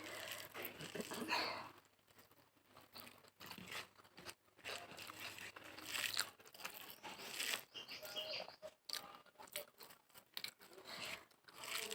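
Close-up eating sounds: chewing and mouth smacking with small irregular clicks and crunches, as a mouthful of rice and bhorta is eaten.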